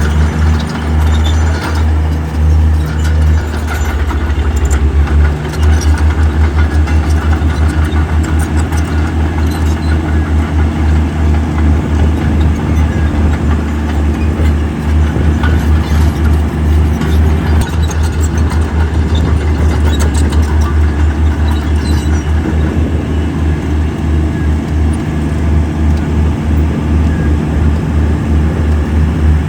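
Heavy diesel engine of earthmoving machinery running hard and close, with a rapid low pulsing; the engine note drops briefly about four seconds in, then picks up again.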